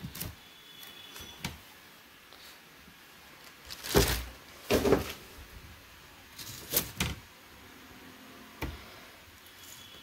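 Hard plastic lid and spin cover of a semi-automatic washing machine being opened and handled: a handful of sharp plastic knocks and clunks, the loudest about four and five seconds in, with quieter handling between.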